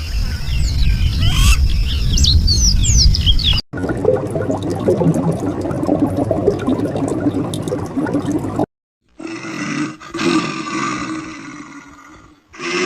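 Short animal recordings cut abruptly one after another: birds chirping over a low rumble for the first few seconds, then other animal sounds in separate clips, one fading out near the end.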